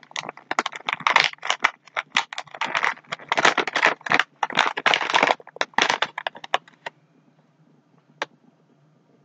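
Plastic snack bag crinkling and crackling as it is handled and pulled open, a rapid run of rustles that stops about seven seconds in. A single sharp click follows near the end.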